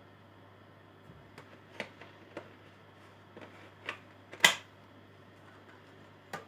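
Irregular sharp clicks and knocks of small hard objects being handled, about eight of them, the loudest about four and a half seconds in, over a steady low hum.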